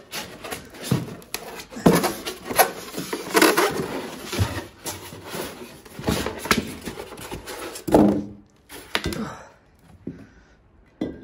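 Expanded polystyrene packing pieces and a steel drill press column being handled: a string of irregular rubbing, scraping and knocking. The loudest knocks come about two seconds in and again about eight seconds in.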